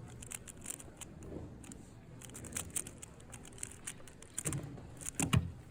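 Rapid clicking of a 3x3 speed cube's layers being turned quickly, with a louder thump near the end.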